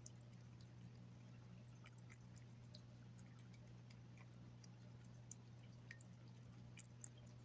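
Cat eating chunky wet food from a glass plate: faint, scattered clicks and smacks of chewing and licking, one sharper click about five seconds in, over a low steady hum.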